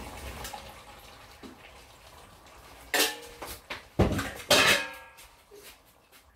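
Metal pot and kitchenware clanking as drained potato cubes are tipped into the curry pot: a few sharp knocks with a short ring, about three seconds in and again around four seconds.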